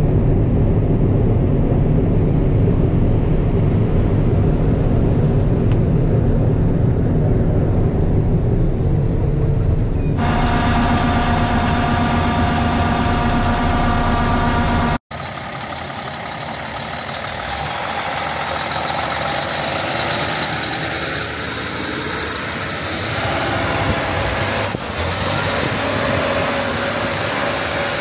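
Heavy harvest machinery running steadily, a deep engine rumble; about ten seconds in a whine with many evenly spaced overtones joins it. Around fifteen seconds the sound cuts out for an instant and resumes as a lighter, hissier machine noise with less low rumble.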